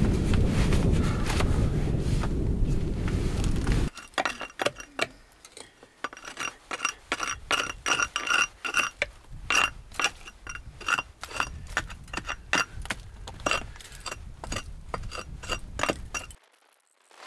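A loud steady rumbling noise that cuts off abruptly about four seconds in. It is followed by a long run of sharp metallic clinks, about three or four a second, each with a brief ringing tone: a metal hand tool striking and scraping the stonework of a rubble-stone wall.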